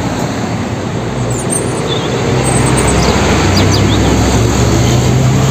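Street traffic with a car-carrier truck's diesel engine running steadily as it drives past: a low engine hum under road noise, growing a little louder partway through.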